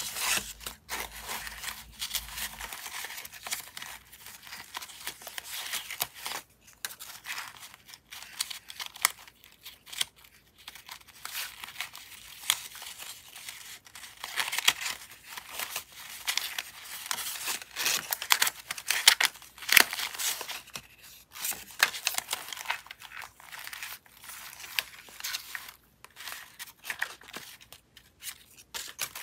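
Scraps of leftover paper rustling and crinkling as fingers riffle through a small box of them and pull pieces out. It comes as an irregular run of crisp rustles, loudest about two-thirds of the way through.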